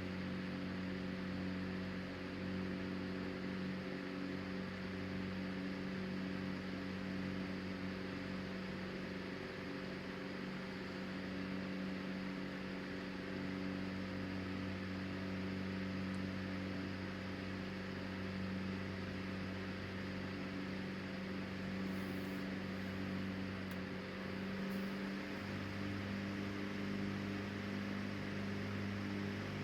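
Emerson 12-inch oscillating table fan (model 29646, circa 1926-29, brass blades) running at a steady speed: a constant electric-motor hum under an even rush of air.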